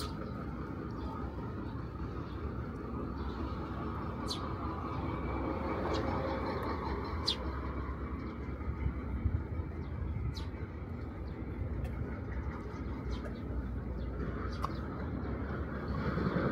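Steady low rumble of distant urban traffic, with a few faint, short high ticks or chirps. The rumble swells right at the end as a louder vehicle approaches.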